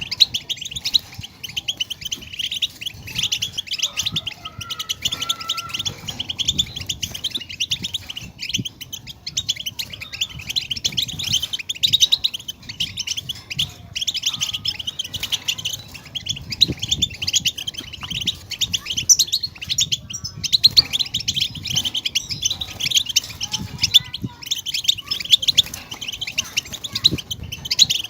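European goldfinch song: a fast, continuous twittering chatter of quick high chirps and trills, dense and without pauses.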